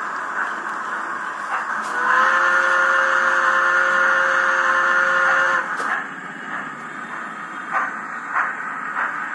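Sound decoder of a Bachmann HO-scale ALCO steam locomotive, played through the model's small speaker: one steady steam whistle blast of about three and a half seconds, starting about two seconds in. After it, slow steam chuffs, roughly one every half second as the locomotive moves off to shunt the wagons.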